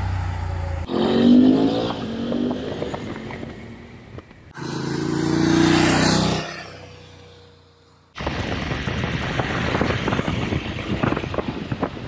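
BMW F750GS parallel-twin motorcycle riding past, two separate passes that each swell and fade, one on the stock exhaust and one on an Akrapovič slip-on. About two-thirds of the way in it becomes onboard riding sound with the Akrapovič slip-on: the engine running under steady wind noise with irregular buffeting.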